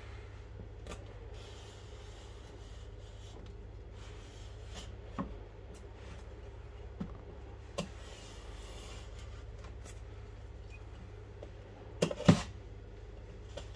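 Utility knife scraping along the plastic shrink-wrap and seal stickers of a cardboard tablet box, with scattered light taps of hands and box. A louder double knock comes about twelve seconds in. A low steady hum sits underneath.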